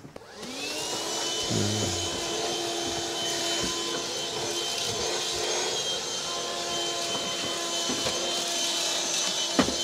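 Black & Decker vacuum cleaner switched on, its motor spinning up to a steady whine within about half a second, then running steadily as it vacuums the motorhome's carpeted floor.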